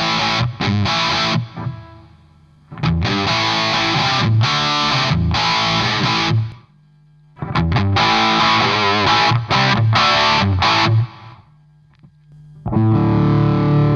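Electric guitar played with a distorted, gain-pedal tone: short riffs and chord stabs in three phrases with brief pauses between them, then a chord left ringing near the end.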